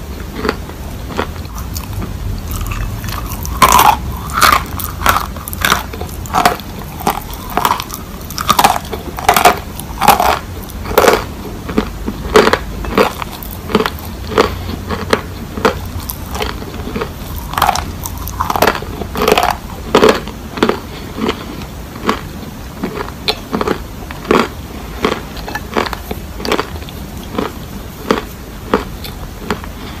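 Dry chunks of Turkistan white edible clay crunched between the teeth: loud, irregular crunchy bites and chewing, the sharpest crunches bunched in the first half and again a little past the middle.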